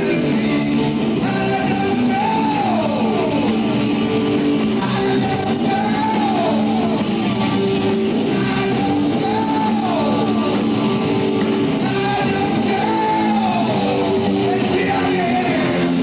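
Live rock band playing: a singer's voice over electric guitar, bass and drums. A phrase with a falling glide repeats about every three and a half seconds.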